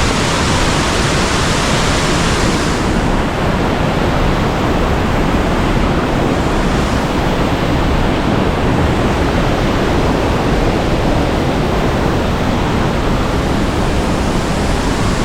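Waterfall rushing steadily. The brighter hiss of the spray falls away about three seconds in, leaving a lower roar of falling water.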